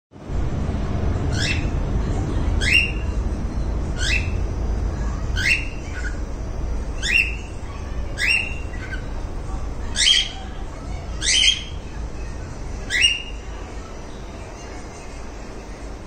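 Cockatiel giving repeated upward-sweeping contact calls, nine of them about one every second and a half, over a low rumble that fades after about nine seconds.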